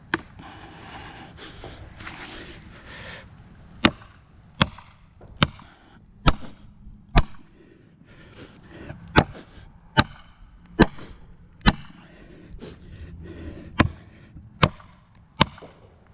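A hammer pounding a felling wedge into the cut of a tree: sharp strikes with a metallic ring, about 0.8 s apart, in three runs of five, four and three blows with short pauses between.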